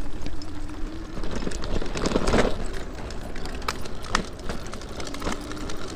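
Electric drift trike riding over bumpy ground: a faint steady electric motor whine, a rush of noise about two seconds in, and scattered knocks and rattles from the bumps.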